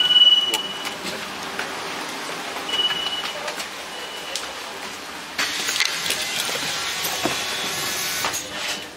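Bus card validator beeping as cards are tapped: one high beep about a second long at the start, then a shorter beep about 3 s in and a fainter one about 4 s in. From about 5 s in the bus's running and road noise grow louder.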